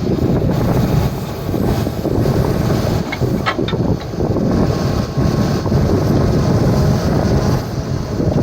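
Diesel engine of working heavy farm or earthmoving machinery running steadily, with wind buffeting the microphone. A few brief high squeaks about three seconds in.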